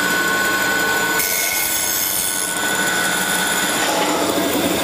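Laguna 3000 series bandsaw running at speed with a steady whine while its blade cuts through a melamine-faced particleboard panel fed along the fence. The cutting hiss grows brighter about a second in as the blade works through the board.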